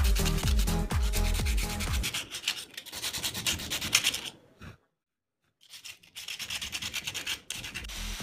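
Hand rubbing and scraping strokes on the rusty hammer as it is cleaned, broken by a brief silence about midway. Electronic music with a beat plays in the first two seconds and comes back near the end.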